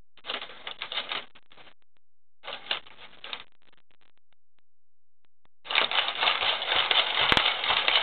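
Robosapien V1 toy robot's electric gear motors whirring and its plastic limbs clattering as it moves: two short bursts, a pause, then a longer continuous run with a few sharp clicks.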